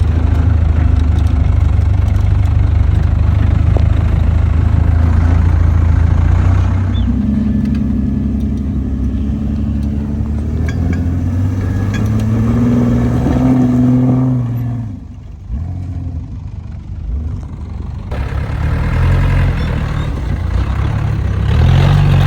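Off-road 4x4 vehicle's engine running: a steady low hum at first, then the revs rising and falling under load. It eases off about two-thirds of the way through and picks up again near the end.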